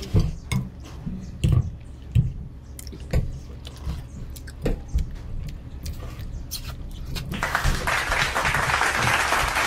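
Metal spoons clinking and scraping on plates, with chewing as noodles are eaten, in scattered sharp clicks. From about seven seconds in, a steady rushing hiss rises and stays.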